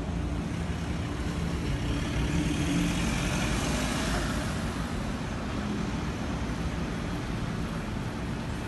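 Road traffic noise, with a van driving past close by: its engine and tyre noise swell about three to four seconds in and then fade.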